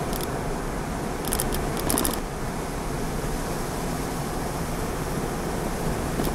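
Steady road and engine noise heard from inside a moving car. A quick cluster of light clicks comes about one and a half to two seconds in.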